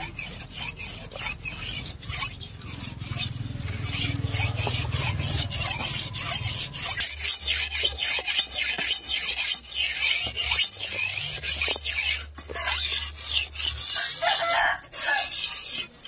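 Steel sword blade being sharpened on a wet brick: a continuous run of quick back-and-forth scraping strokes, a gritty rasp.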